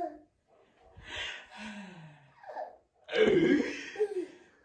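A baby laughing in breathy bursts while being lifted up in the air, the loudest burst about three seconds in, with a man's low voice sliding down in pitch in between.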